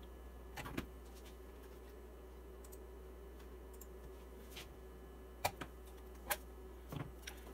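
Faint scattered clicks and light knocks of hands unplugging a BNC cable and adapter from a small USB oscilloscope and handling its metal case, most of them in the second half, over a faint steady hum.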